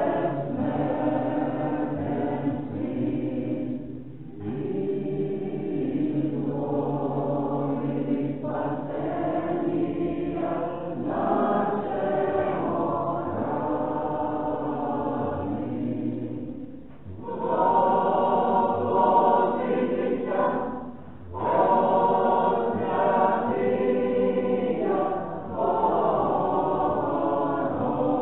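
Church choir singing a liturgical chant in long sustained phrases, with brief pauses between them.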